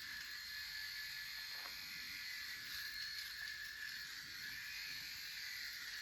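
Electric shaver running with a steady high buzz while a man shaves his stubble.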